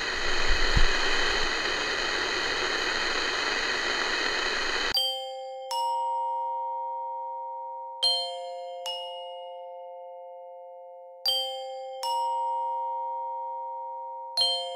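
Steady hiss of static from a portable radio, with a low thump about a second in; it cuts off suddenly about five seconds in. Soft background music follows: ringing bell-like notes struck in pairs, a pair about every three seconds.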